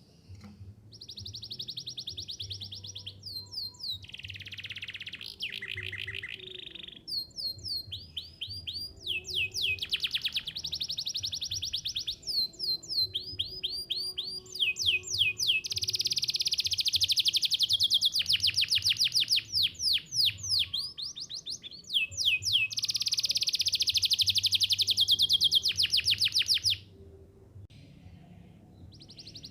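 Canary singing a long song of rapid trills and repeated sweeping chirps. A loud, sustained rolling trill fills the second half, then breaks off shortly before the end.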